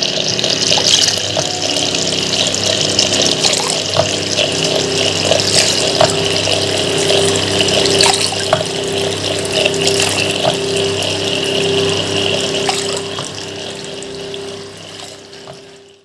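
Water pouring in a thin stream from a pipe elbow into the pivoting cup of a homemade rocking fountain, splashing and trickling over its cement base. A steady low hum runs underneath. The sound fades out near the end.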